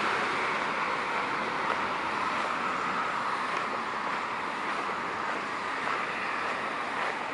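Steady rush of road traffic from a wide multi-lane road, an even hiss of tyres with no single vehicle standing out, easing slightly in level.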